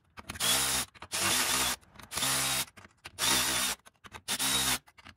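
Cordless 3/8-inch Milwaukee ratchet run in five short bursts of about half a second each, its motor whining as it spins U-bolt nuts down to draw the U-bolt onto the frame.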